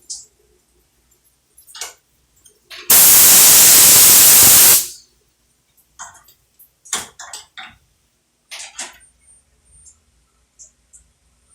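A loud hiss, like a blast of air, lasting about two seconds and starting about three seconds in, with scattered short clicks and rustles before and after it.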